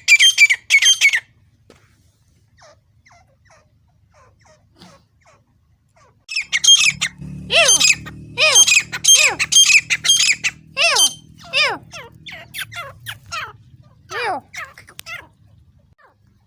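Grey francolin calling. A quick cluster of loud calls comes at the start, then scattered faint notes. From about six seconds in there is a loud run of repeated notes, many falling steeply in pitch, which thins out over the last few seconds.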